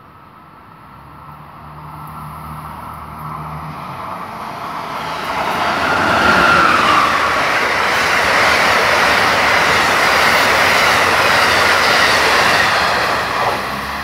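Amtrak Northeast Regional passenger train, a Siemens ACS-64 electric locomotive with Amfleet cars, passing at about 103 mph. The noise builds over several seconds and holds loud for about seven seconds as the cars go by, then drops sharply near the end as the rear of the train passes.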